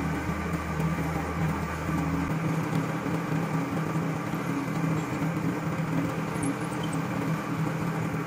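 Benchtop drill press running steadily with an even motor hum as its bit bores through a wooden knife-handle scale clamped to the steel tang.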